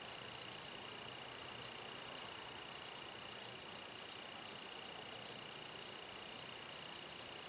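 Insect chorus: a steady high-pitched trill with a fainter regular pulsing above it, over a soft even hiss.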